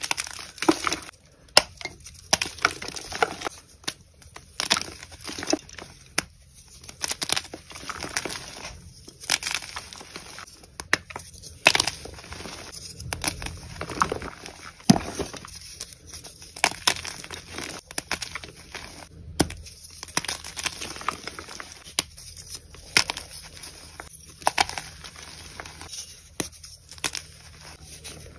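Blocks of dyed gym chalk crushed and crumbled by hand: a continuous run of dry, crisp crunches and crackles, irregular and sharp, as the blocks snap and break down into powder.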